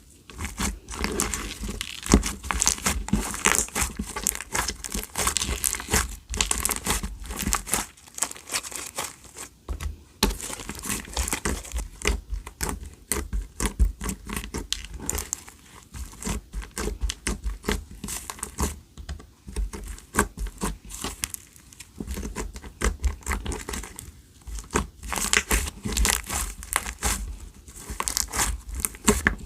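Clear slime squished and stretched by hand, giving dense crackling clicks, with short lulls about eight and twenty-one seconds in.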